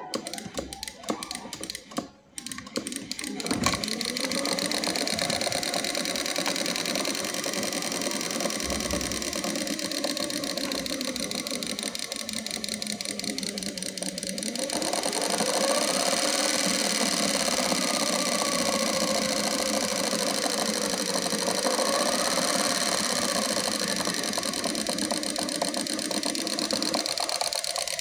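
Miniature Dongfeng diesel engine model running with a rapid, even mechanical clatter that starts after a few clicks, about three seconds in. From about halfway it runs louder, its pitch rising and falling as if throttled up and down.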